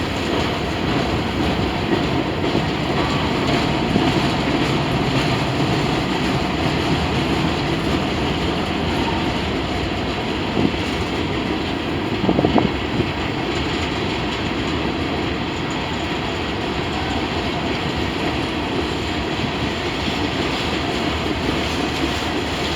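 Freight train rolling past at track side: a steady rumble of steel wheels on rail, with a few sharp clacks near the middle.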